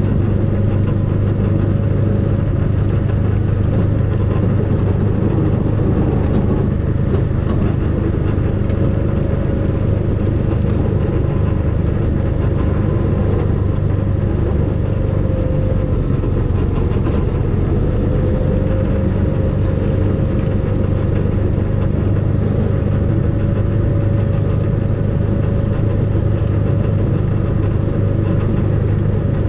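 Snow-plough vehicle's engine running steadily under way, a constant low drone with a thin whine above it that dips briefly about halfway through and comes back.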